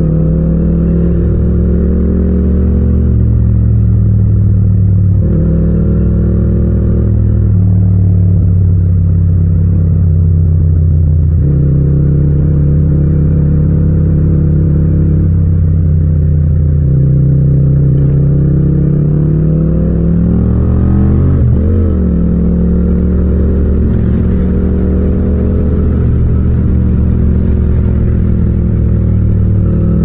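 Yamaha MT-07 (FZ-07) 689 cc parallel-twin engine and exhaust under way, heard raw from the rider's position without wind noise. Its note climbs under throttle and drops suddenly several times as the throttle is rolled off or a gear is changed, with a shift up into a higher gear in the second half.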